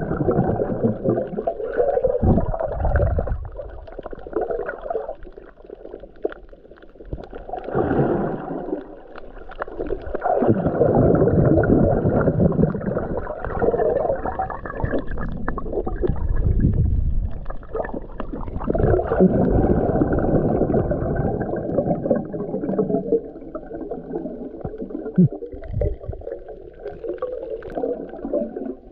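Muffled underwater water noise picked up by a camera in its housing: gurgling rushes that swell and fade every few seconds, with a few faint knocks.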